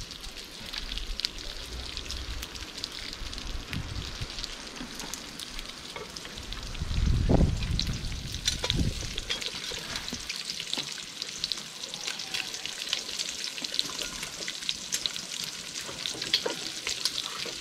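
Pork fat (salo) frying and crackling as it renders in a hot cast-aluminium kazan, with a steady patter of small pops. A brief low rumble about seven seconds in is the loudest moment.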